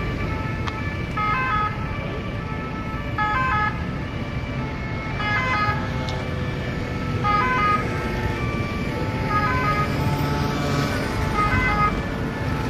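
French two-tone emergency-vehicle sirens (deux-tons) alternating between a high and a low note, with clusters recurring about every two seconds. Steady city traffic rumble runs underneath.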